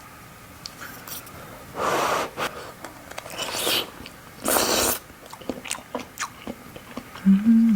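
Close-miked eating sounds of shellfish being chewed: three short, loud wet bursts with small clicks and smacks in between.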